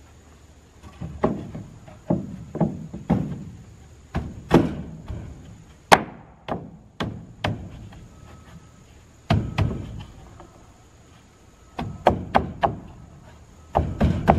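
Wooden knocks and thuds as a rough-sawn board is knocked and pressed into place against a wooden wall above a window opening: about eighteen knocks, in clusters of two to four with short quiet gaps between.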